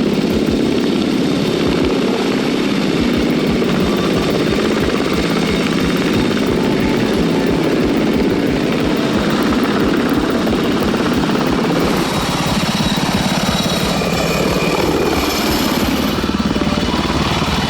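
CH-47 Chinook tandem-rotor helicopter running: a steady, rapid beat of rotor blades over engine noise, at a constant loud level.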